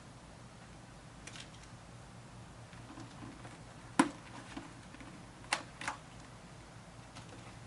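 Cheek pads being pulled out of a full-face motorcycle helmet: a few sharp clicks and snaps from the pads' fasteners and the helmet shell. The loudest comes about four seconds in, followed by two more close together about a second and a half later, over a faint room hum.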